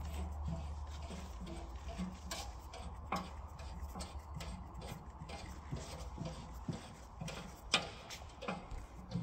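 Faint, scattered clicks and knocks of a hand working the locking knob and guard cover of an SCM M2 multi-rip saw that is not running, the sharpest click near the end. A low hum sits underneath.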